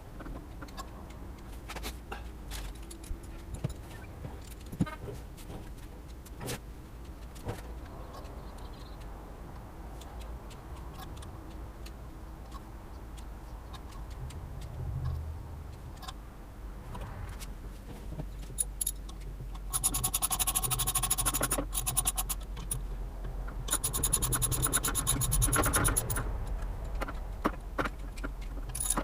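Metal hand tools clinking and scraping on the vehicle's parts, then two short runs of a socket ratchet wrench being cranked, rapid ticking lasting about two seconds each, in the last third.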